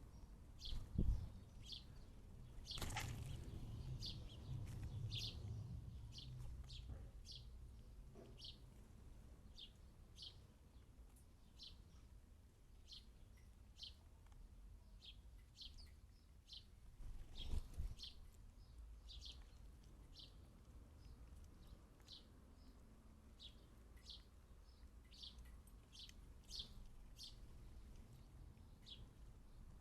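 A sparrow chirping over and over, a short cheep every half second to a second. A few low thumps break in, the loudest about a second in and again near the 17-second mark.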